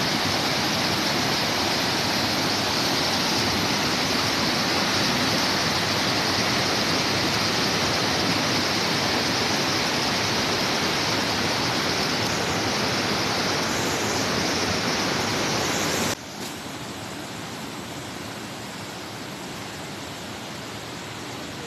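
Waterfall rushing steadily, a loud even hiss of falling water. About sixteen seconds in it drops suddenly to a quieter rush of water.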